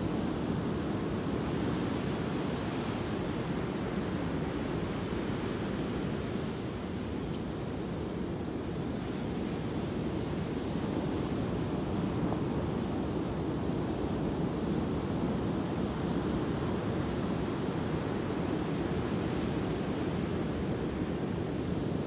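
Ocean surf breaking and washing up a sand beach: a steady rush of waves, easing slightly about seven seconds in before building again.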